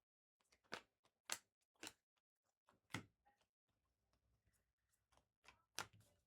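Faint handling of trading cards: about six soft, short clicks and taps as cards are flipped, slid and set down, the two sharpest about three seconds in and near the end.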